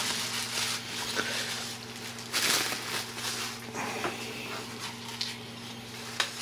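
Rustling and handling noise of packaging being unwrapped by hand, with a louder rustle about two and a half seconds in, over a steady low hum.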